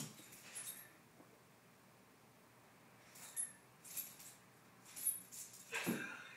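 Two Maltese dogs playing on a hardwood floor: faint scattered scuffles and light jingling, a few short bursts from about three seconds in, with a near-silent stretch before them.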